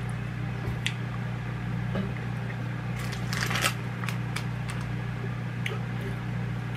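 Mouth and handling sounds of someone tasting a hard lollipop: a few small clicks and a short crackle about three seconds in, over a steady low hum.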